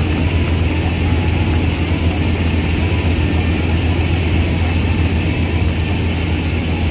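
Combine harvester's engine running steadily while cutting wheat: an even, unbroken low drone with the machine's rushing noise above it.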